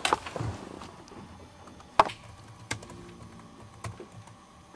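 A few separate clicks on a laptop keyboard, the sharpest about two seconds in.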